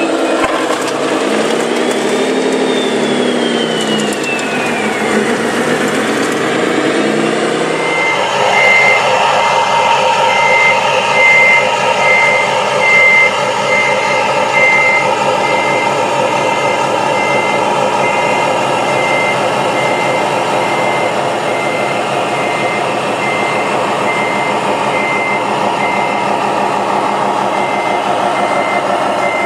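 Radio-controlled construction truck: a motor whines, rising and falling in pitch. About eight seconds in, a steady engine sound takes over, with a reversing alarm beeping about once a second.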